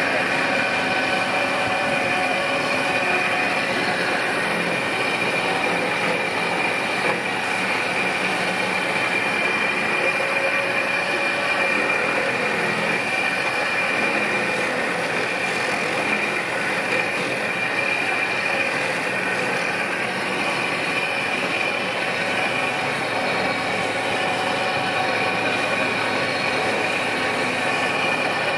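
Old belt-driven clog-copying machine (klompenmachine) running steadily, its rotating cutter carving a wooden clog from a pattern clog, with a steady high whine over machinery clatter.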